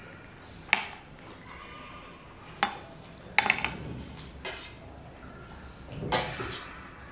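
A small metal spoon clinking against a plate as a toddler scoops food: several separate sharp taps a second or two apart, with a quick cluster of clinks in the middle.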